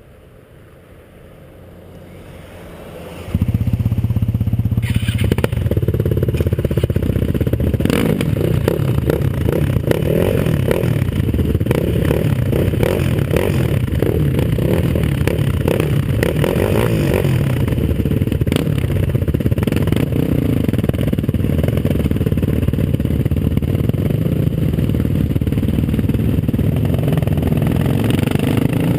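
Sport ATV's single-cylinder four-stroke engine, faint at first, then coming in loud about three seconds in and running hard under throttle, with clattering and scraping from the machine riding through snow.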